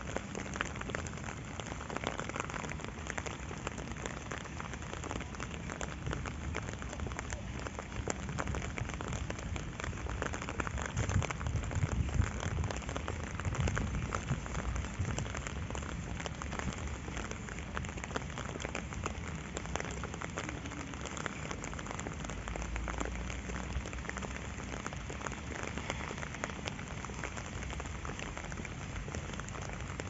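Steady rain, a dense patter of drops, with a stronger low rumble for a few seconds near the middle.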